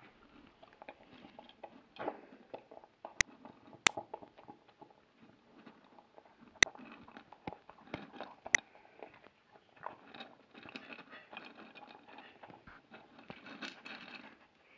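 Patterdale terrier cross chewing and eating close to the microphone, with irregular wet crunching and several sharp clicks.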